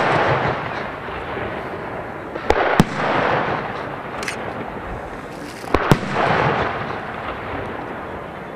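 Aerial firework shells bursting in the sky: two pairs of sharp bangs about three seconds apart, each bang trailing off over about a second.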